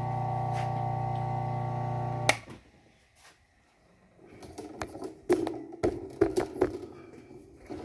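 Low-speed bench sander hums steadily, then is switched off with a click about two seconds in. After a short pause come scattered clicks and rubbing from handling a knife.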